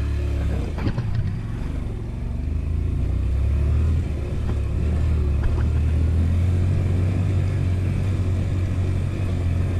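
Honda Varadero 125's small V-twin engine running steadily at low revs, with a few light clicks in the first second.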